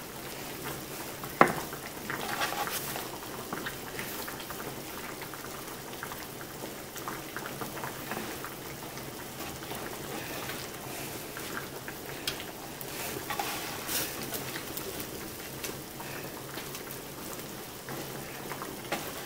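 Quiet kitchen handling noises: puff pastry being folded and pressed by hand on a plastic cutting board and sealed with egg wash from a silicone brush. There is one sharp tap about a second and a half in.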